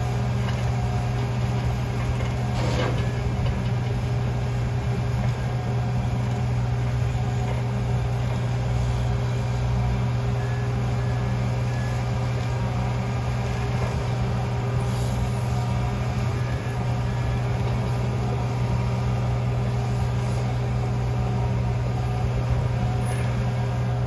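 Heavy engine running steadily at one even pitch, from the rail train's equipment as the threader car pulls welded rail off the cars.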